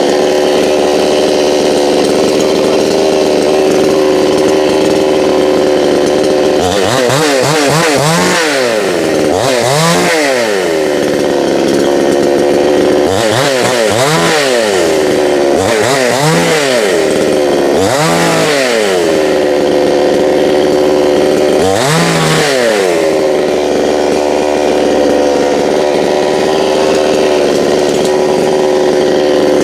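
Gas chainsaw running at high speed. Its engine pitch dips and recovers about seven times as the chain bites into the wood and bogs under load.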